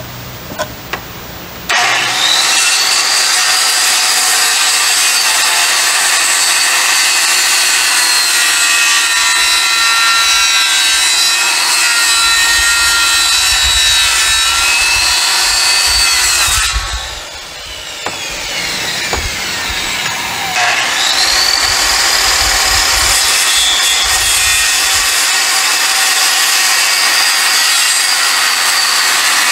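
Corded circular saw cutting across a pressure-treated 4x4 post, making kerf cuts for a half-depth notch. The motor starts about two seconds in and runs under load through the wood, winds down with a falling whine past the middle, then starts again with a rising whine and cuts on.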